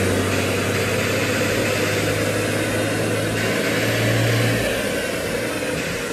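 Compound-turbo 5.9 Cummins diesel running under a steady load on a chassis dyno for a tow-tune EGT-control test, over the rush of the dyno and cooling airflow. The engine note swells briefly about four seconds in, then eases off toward the end.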